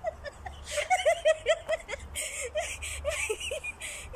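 Women giggling and laughing in a run of short, high, rising-and-falling calls.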